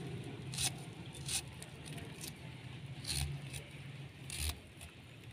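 Beetroot being sliced against the blade of a boti, a handful of short scraping cuts a second or so apart.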